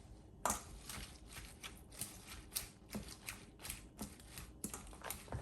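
Quiet, irregular rustling and soft clicks of spinach leaves being handled and pushed into place, a light tap or crinkle every fraction of a second.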